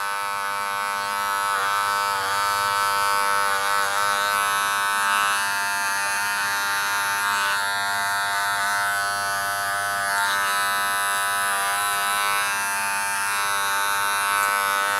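Electric dog grooming clippers running steadily as they trim a puppy's paw pads. A constant buzzing hum whose pitch wavers slightly now and then.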